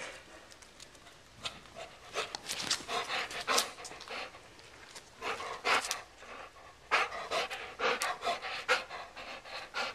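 A large brown dog panting hard right at the microphone, in quick runs of short open-mouthed breaths that start about a second and a half in and carry on with brief pauses.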